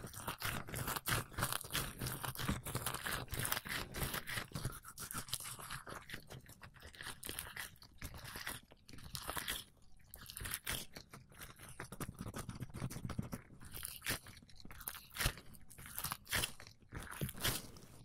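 Rubber gloves slick with a greasy coating, squelching and crackling as the gloved fingers rub and flex close to the microphone: a dense, irregular run of small wet crackles.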